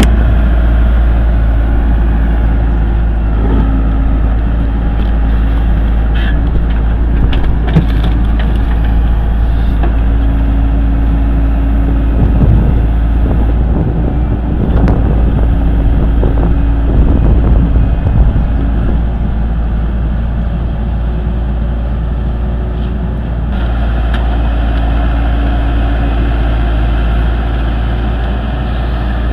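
Heavy machinery running: a steady diesel engine drone with a deep rumble and occasional knocks.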